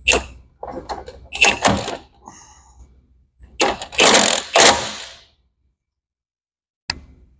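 Milwaukee cordless impact wrench hammering in three bursts, the longer two about a second and a half each, turning the nut of an improvised threaded-rod press that draws a bronze bushing into the forklift's axle mast mount. The sound cuts off abruptly a little past halfway.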